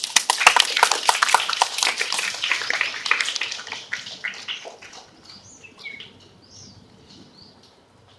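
Applause from an audience, fading out over about five seconds, followed by faint bird chirps.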